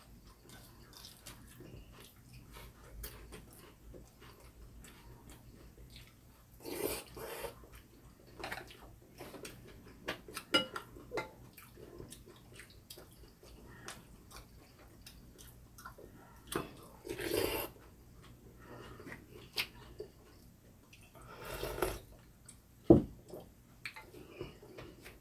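Eating sounds over bowls of beef rib soup: chewing, with scattered light clicks of chopsticks and spoons against ceramic bowls. There are a few louder bursts, three of them longer, and a single sharp knock near the end.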